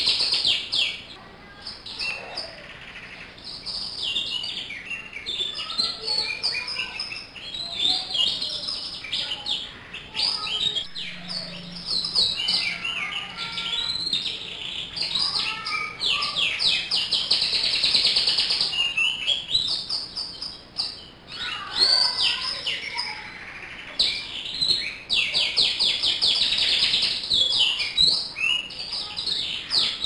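Domestic canary singing almost without pause, in fast, high trills and rolling phrases.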